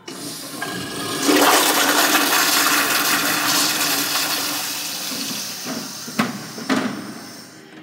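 Zurn wall-mounted toilet flushing: a loud rush of water that builds over about a second, then slowly fades. Two sharp gurgles come near the end as the bowl siphons empty through the trap.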